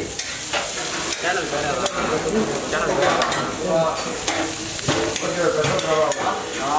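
Onions and masala sizzling on a hot flat iron dosa griddle, with a metal spatula scraping and tapping against the griddle several times.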